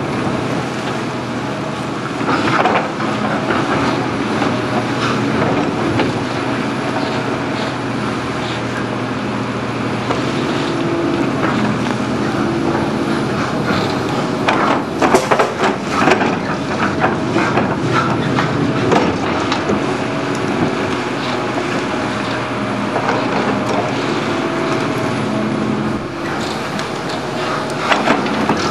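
Hydraulic excavator running steadily while loading spoil and rubbish into an open steel rail wagon, with a burst of clattering knocks about halfway through as material drops in.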